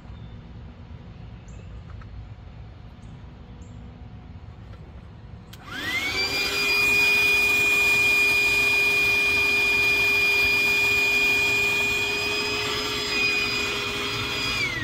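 A 12-volt electric air pump switches on about a third of the way in, spins up quickly and runs with a steady whine. Near the end it wavers briefly, then it is switched off and starts to wind down.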